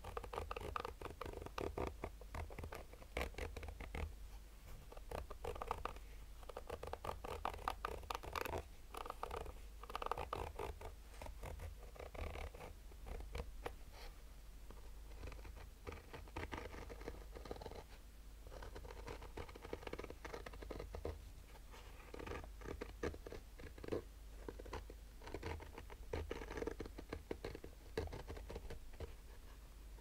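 Fingernails slowly scratching a black fabric-covered Polaroid sunglasses case, raking its zipper teeth and woven textured surface in a steady run of short rasping strokes.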